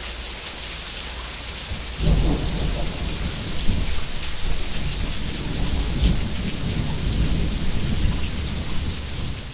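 Steady rain hissing, joined about two seconds in by a low rumble of thunder that rolls on with repeated swells.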